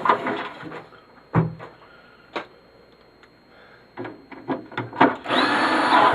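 Knocks, clicks and scraping of plastic and metal parts as a small CRT television is taken apart by hand, with a longer, louder rasping scrape about five seconds in.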